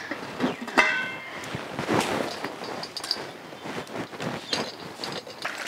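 Irregular knocks and clatter of objects being handled, with a short ringing clink about a second in.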